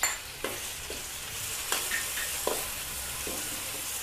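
Coarsely pounded garlic sizzling as it fries in hot oil in a metal wok, with a spatula scraping and tapping against the wok a few times as it is stirred.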